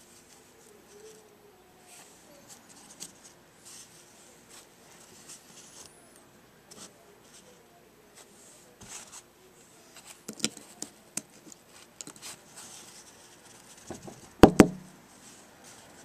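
Small metal parts of a two-stroke engine's diaphragm carburetor being handled and taken apart by hand: light clicks and scrapes, a few sharper clicks about two-thirds of the way through, and a loud sharp double click near the end.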